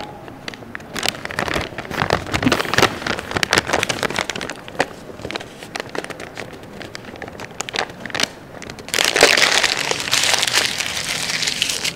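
A sheet of paper handled with crinkling and crackling, then torn up, with a longer, louder run of tearing about nine seconds in.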